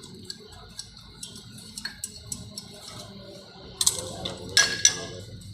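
Small metal tools and parts tapping and clinking during repair work: scattered light ticks, then a few louder metallic clinks near the end.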